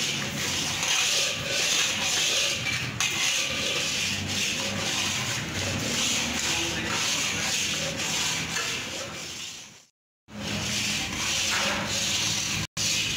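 Metal spatula scraping round a steel kadai as semolina is stirred and roasted in ghee: a steady, rasping scrape. It breaks off for a moment twice, once about two-thirds of the way through and once near the end.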